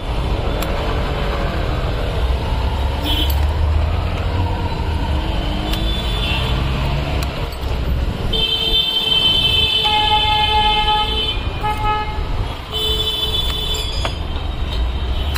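Street traffic rumbling steadily, with vehicle horns honking several times; the longest honk is held for about three seconds from just past the middle, and another follows shortly after.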